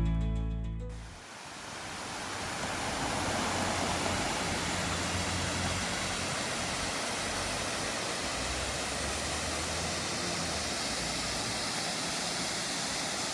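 Steady rushing of falling water from a waterfall, an even, unbroken noise. Background music fades out about a second in.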